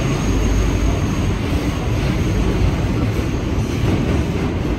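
Steady running noise inside a Kawasaki R211T subway car in motion: the low rumble of wheels on rail and the car body's rattle.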